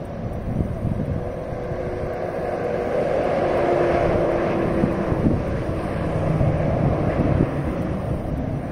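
Interstate highway traffic passing, with the tyre and engine noise of a tractor-trailer swelling as it goes by about four seconds in.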